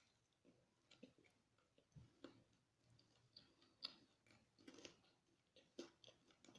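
Faint chewing and small mouth clicks of someone eating spicy fried chicken, a soft sound every second or so.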